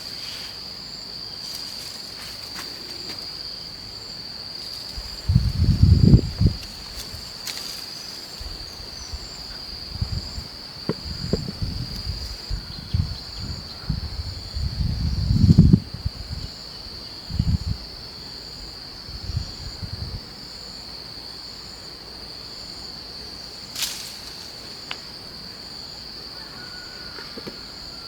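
Insects trilling steadily on one high, unbroken note. Irregular low thumps and rumbles come over it for several seconds around the middle.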